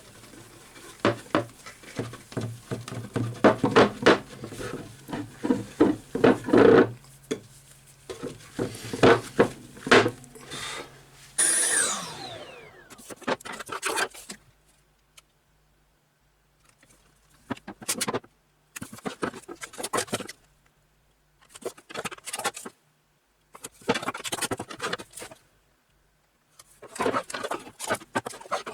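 Wood lathe running while something is rubbed and scraped against the spinning sanding disc in irregular strokes. About twelve seconds in the lathe is switched off and its whine falls away, followed by scattered bouts of scraping and rustling.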